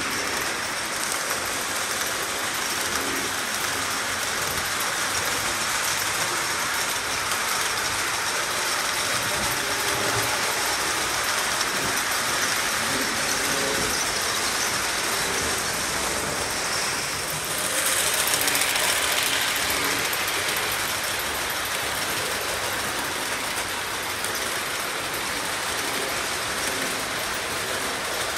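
O-gauge model freight train running past on three-rail track: a steady clatter and rumble of many metal wheels on the rails, louder for a couple of seconds a little past the middle.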